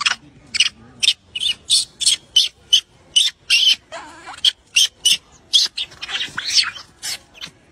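A young macaque close to the microphone making a rapid, irregular run of short, high squeaks and chirps, about two to three a second.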